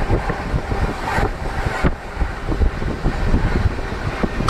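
Wind buffeting the microphone in irregular gusts over a continuous vehicle rumble.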